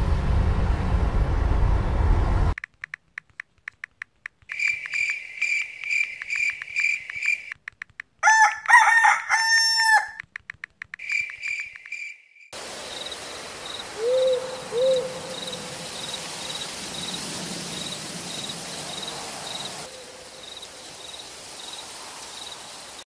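Music cuts off about two and a half seconds in. A string of clicks follows, then a repeated high chirping and a loud crowing call that bends down in pitch. A night-forest ambience then takes over: crickets chirping in a steady rhythm over a soft hiss, with two short low hoots near the middle.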